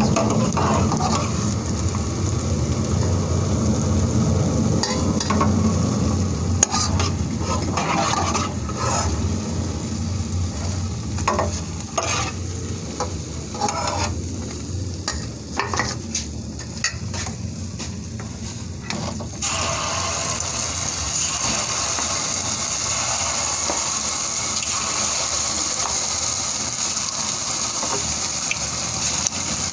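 Hot oil sizzling in a kadhai as sweet wheat-flour pua deep-fry, with a steel ladle clinking and scraping against the pan as the fried ones are lifted out. About two-thirds of the way in, the sizzle turns brighter and louder and holds steady, and more batter goes into the hot oil near the end.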